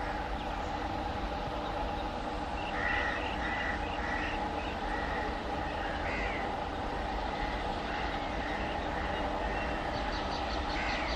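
WAP-5 electric locomotive approaching with its train: a steady hum with a few level tones in it. Birds chirp several times.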